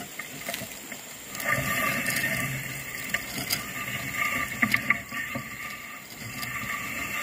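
Wind gusting through the trees, a rushing noise that swells about a second in and holds. A few sharp clicks sound near the middle.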